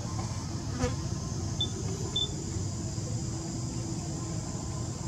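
Steady high-pitched insect drone, with two short high chirps about a second and a half and two seconds in, over a low rumble.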